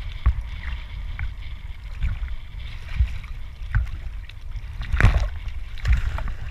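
Sea water sloshing and slapping against a camera held at the surface, with irregular knocks and thumps. A louder splash near the end as a scuba diver in full gear jumps from the boat's stern platform into the sea.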